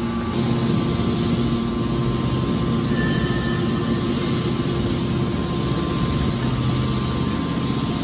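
Hydraulic metal baler running with a steady hum from its motor and hydraulic pump as the hinged top lid swings over to close on a charge of steel turnings.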